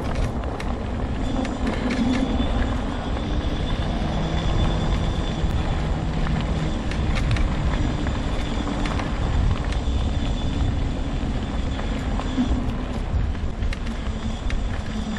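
Homemade all-wheel-drive mobility scooter driving along a trail: a steady motor whine over the rumble of its tyres on the path, with small clicks and knocks from the ride.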